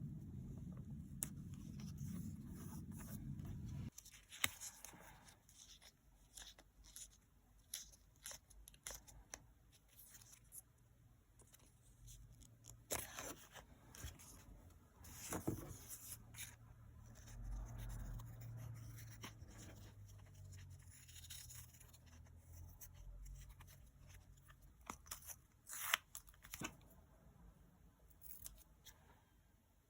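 Paper-craft sounds at a desk: scissors snipping, paper and sticker sheets tearing and rustling, with scattered small clicks and taps. A low hum stops about four seconds in.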